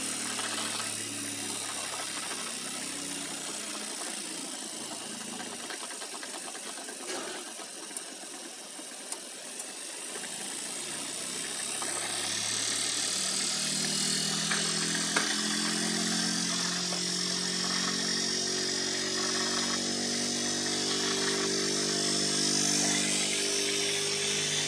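Washing-machine motor spinning a grinding stone: a steady whirring hum with a hiss over it. It drops off and quiets around the middle, then picks up again and runs fuller, with a few short clicks along the way.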